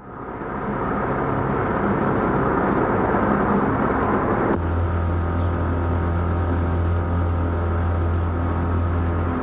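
Worn Super 8 magnetic soundtrack: a dense rumble fades in. About halfway through it cuts abruptly to a steady low hum with a drone of higher tones above it.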